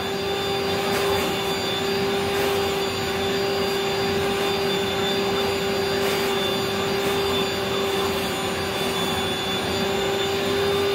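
Rainbow water-filtration vacuum cleaner running steadily while its hose cleans a chair: an even rush of air over a constant motor whine.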